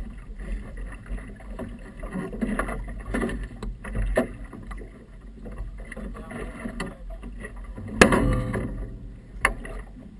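Small boat moving over choppy river water: a steady low rumble with frequent slaps of water against the hull. A sharp knock comes about eight seconds in and a smaller one a second and a half later.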